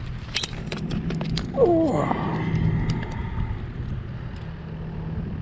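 Camera handling noise, a run of clicks and knocks as it rubs against denim, over a steady low hum. A short falling squeal about one and a half seconds in.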